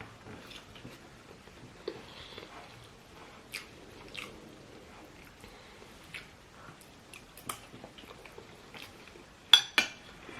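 Chewing and eating a meal, with small scattered clicks and mouth sounds, and two sharp, loud clicks close together near the end.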